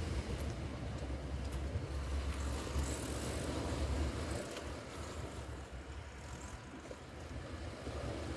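Wind rumbling on the microphone over a steady wash of sea, the rumble easing off after about the middle.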